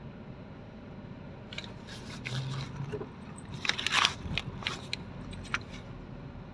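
Steady low rumble of a moving car heard from inside the cabin, with a run of crackling, scraping clicks that start about a second and a half in and are loudest about four seconds in.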